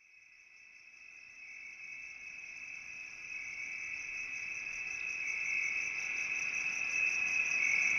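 Crickets trilling in a steady high chorus, fading in and growing gradually louder.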